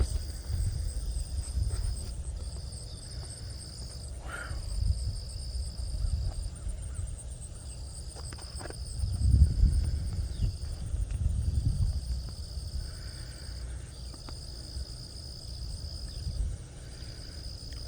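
Insects trilling: a high buzzing trill that comes in repeated bursts of a second or two with short breaks, over a fainter, steady, higher chirring. Gusts of wind rumble on the microphone, loudest about nine to ten seconds in.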